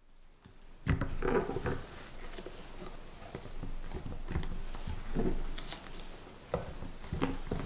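A spatula folding egg-yolk batter into whipped meringue in a glass bowl. It makes irregular soft, wet strokes with light scrapes and taps against the glass, starting about a second in.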